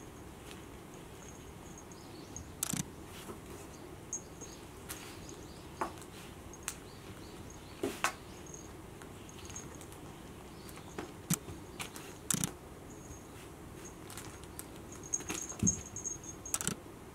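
Scottish Fold kitten at play: irregular light taps, scratches and rustles as its paws and claws bat a small ball toy and brush the nylon play tent and carpet, with a cluster of quicker taps near the end.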